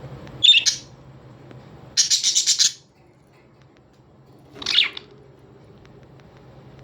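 Birds chirping: a short high chirp about half a second in, a fast rattling run of about a dozen notes at two seconds, and a call sliding downward in pitch near five seconds, over a faint steady low hum.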